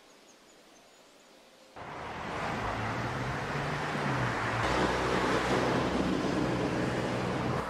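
Faint steady hiss of quiet outdoor ambience, then, about two seconds in, loud road traffic cuts in suddenly: a dense, steady rush of passing cars with the low hum of engines.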